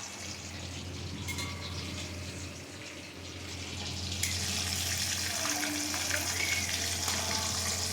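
Breaded chicken strips sizzling as they shallow-fry in a kadai of light oil over medium heat: a steady hiss that grows louder about four seconds in.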